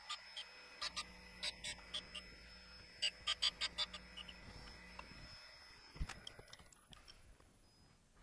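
Harig Super 612 surface grinder's wheel making light finishing contact on a cold chisel's cutting edge: irregular sharp ticks over a faint steady hum, stopping about five seconds in. A single knock follows about six seconds in.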